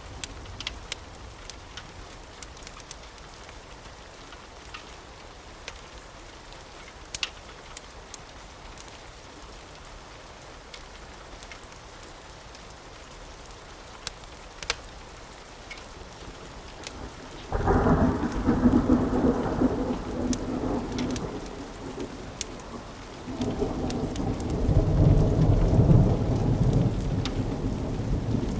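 Steady rain with scattered sharp pops, then thunder breaks in suddenly about two-thirds of the way through: a loud low rumble that eases briefly and then swells louder again.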